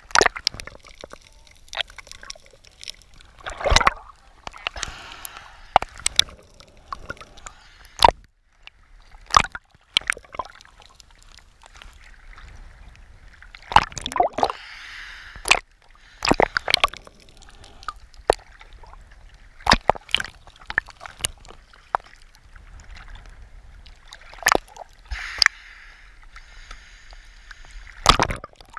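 Sea water sloshing and splashing against a camera at the waterline, with irregular sharp knocks and a few spells of bubbling.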